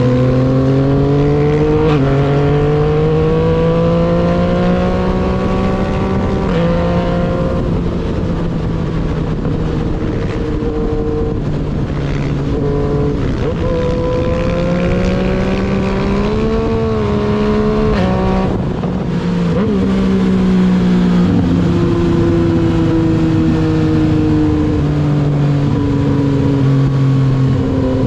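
Yamaha MT-09's inline three-cylinder engine running under way, its pitch climbing slowly then changing abruptly at each quickshifted gear change, several times. There is a short rise and fall in revs about 17 seconds in.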